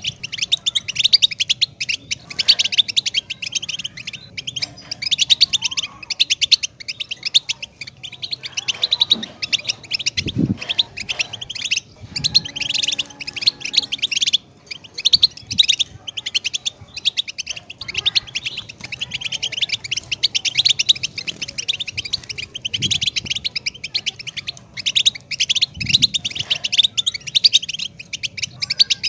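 European goldfinch singing: a long, fast twittering song of rapid high notes, broken only by brief pauses, with a few faint low thumps beneath it.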